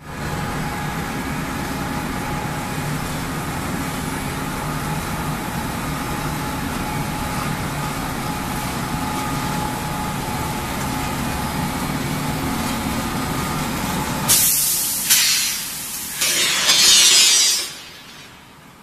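Bar peeling and straightening production line running with a steady machine hum and a steady whine. About fourteen seconds in come three loud hisses, the last one the longest, and then the machine noise drops away.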